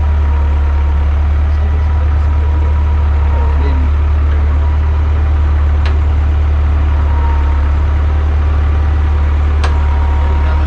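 An engine running steadily with a deep, even rumble and a faint steady whine above it. Two short sharp clicks come partway through and near the end.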